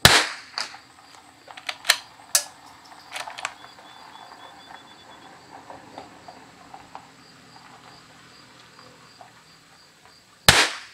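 Two .22 LR rifle shots from a Christensen Arms Ranger 22, one at the start and another about ten and a half seconds in. A few sharp clicks fall in between, about two seconds in.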